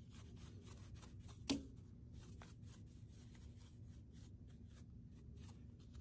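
Faint, quick strokes of a small bristle brush sweeping metal chips off the metal clamp of a key cutting machine after a cut, with one brief louder sound about a second and a half in.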